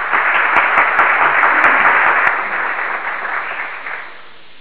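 Canned applause sound effect: a crowd clapping densely, thinning out in the second half and cutting off abruptly at the end.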